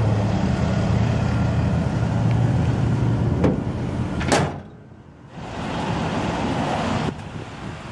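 The 7.4-litre (454) Vortec V8 of a 1998 Chevrolet Silverado 3500 idling steadily, with two sharp knocks a little past the middle, after which the sound briefly drops away and returns.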